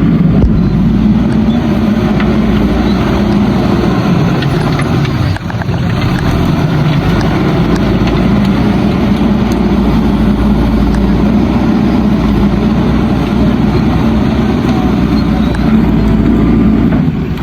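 JCB backhoe loader's diesel engine running steadily and loud, with a brief dip about five seconds in.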